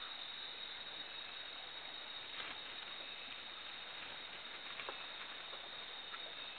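Night forest ambience: a steady hiss with a constant high whine, and a few faint clicks about two and a half, five and six seconds in.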